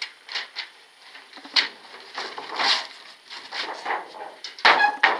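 Large sheets of paper being rustled and flipped over on a table: a rapid, irregular series of crinkling swishes, with the loudest one near the end.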